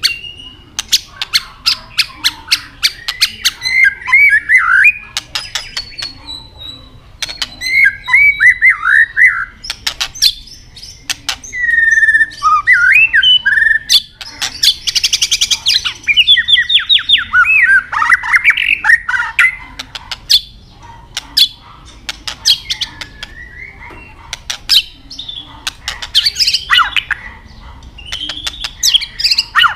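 White-rumped shama calling: runs of sharp, clicking "tak" calls broken up by short, warbled whistled song phrases. A longer, rapid trilled phrase comes about halfway through.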